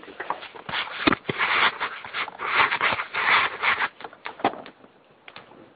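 Rustling and scraping with a few sharp clicks as a hand works a metal staple into the car's two-pin service check connector under the dash; it dies away after about four seconds.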